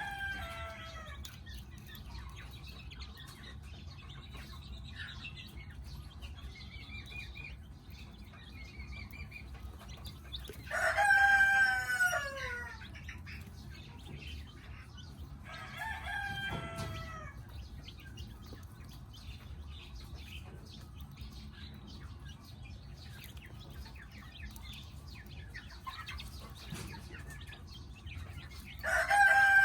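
Rooster crowing four times, the loudest crows about ten seconds in and at the very end, with short high peeps of chicks between the crows.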